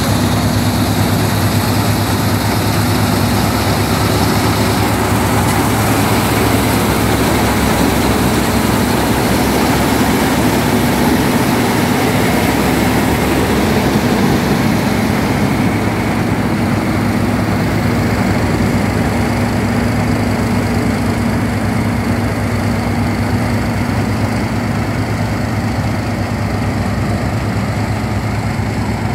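NS29 mini combine harvester running under load while cutting and threshing wheat: a steady engine note over the constant clatter of its machinery. The sound grows slightly duller and quieter in the second half.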